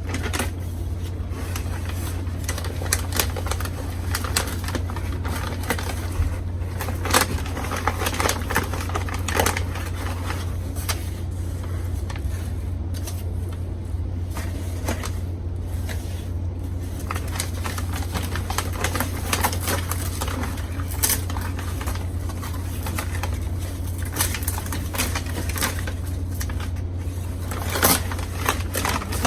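Crinkling and rustling of plant shipping packaging being handled and unwrapped, many small crackles with a few sharper ones, over a steady low electrical hum.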